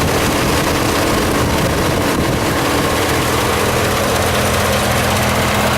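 1984 Corvette's stock L83 5.7-litre V8 with Cross-Fire Injection idling steadily.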